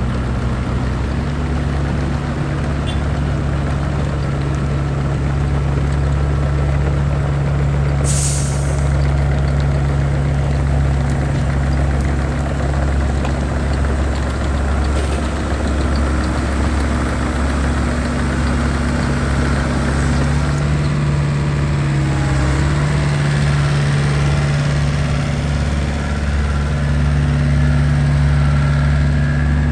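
Volvo ECR88 compact excavator's diesel engine running steadily, its pitch shifting slightly a couple of times as the boom and bucket are worked. A short, sharp hiss comes about eight seconds in.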